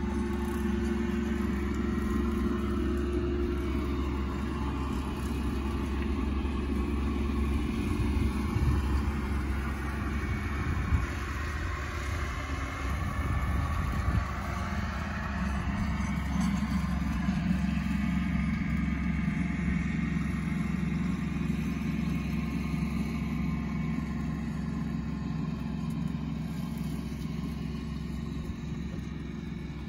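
Tractor engine running under load as it pulls a bush hog rotary mower, a steady drone that shifts a little in pitch as it works.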